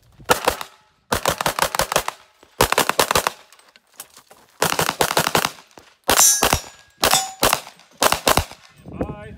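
Pistol fired in about seven rapid strings of several shots each, with short pauses between strings as the shooter moves to new positions. A brief metallic ring follows a couple of the strings.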